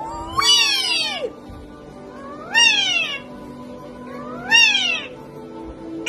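Three meows, each rising then falling in pitch, about two seconds apart, the first the longest, over quiet background music.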